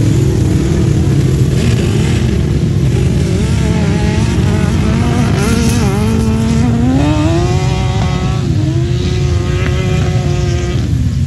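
1000cc grasstrack sidecar outfits racing, their engines running hard under a dense rumble. One engine's pitch climbs steeply about six to seven seconds in, holds high with a brief dip, then drops away near the end.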